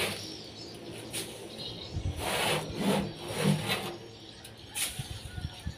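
Gloved hands scraping and rustling through compost in a wheelbarrow, with a few light knocks against the pan.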